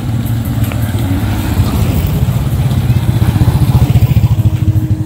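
Small motorbike engine running as it rides past close by, growing louder to a peak about four seconds in, then easing off.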